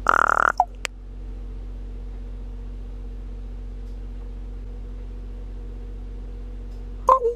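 A common raven gives one harsh, snore-like rasp at the very start, followed by a short note and a click. A truck engine then idles with a steady hum until, near the end, the raven starts a quick run of sharp clicks and short calls.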